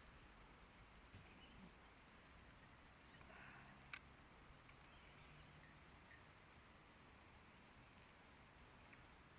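Faint, steady, high-pitched insect chorus droning without a break, with a single sharp click about four seconds in.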